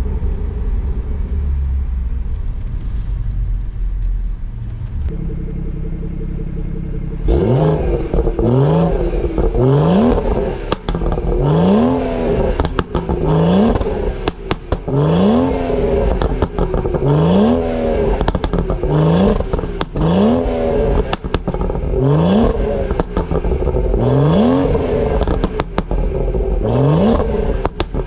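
Stage 2+ tuned, decatted BMW 340i's B58 turbocharged straight-six being revved in repeated quick throttle blips, about one a second, each followed by pops and crackles on the overrun. The blips begin several seconds in, after a steady lower engine note.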